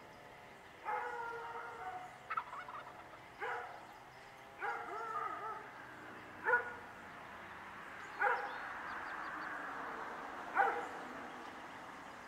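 A wild turkey tom gobbling, about seven gobbles a second or two apart.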